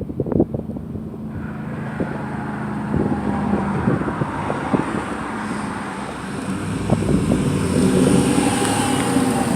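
Exhaust of a turbocharged BMW E39 540i V8, with a few sharp pops at the start, then the engine running with a steady note that slowly grows louder toward the end.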